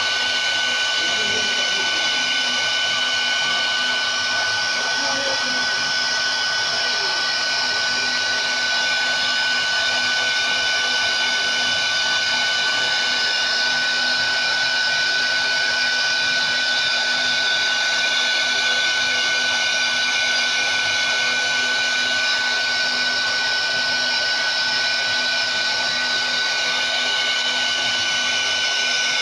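CNC wood router's 4.5 kW spindle motor running with a steady high whine while its bit carves a relief panel into wood, with a constant hiss of cutting under it.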